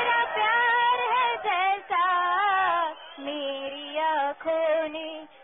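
A woman singing a melody, her voice bending through the notes, then holding one long note in the second half.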